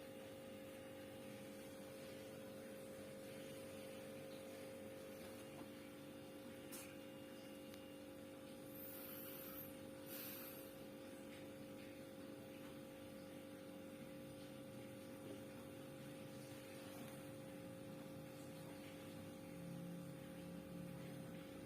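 Sharp SJ-237 two-door refrigerator's compressor running with a steady hum, a couple of fixed tones over a low rumble, while it pulls the compartment temperature down.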